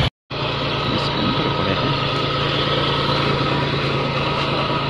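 A vehicle engine idling steadily, an even hum with a constant low pitch.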